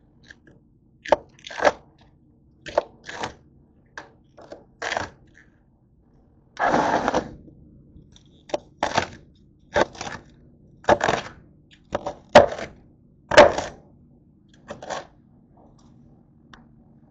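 Crisp green cabbage leaves being snapped and torn off the head and handled: a string of short, irregular cracks and crunches, with one longer tearing sound about seven seconds in.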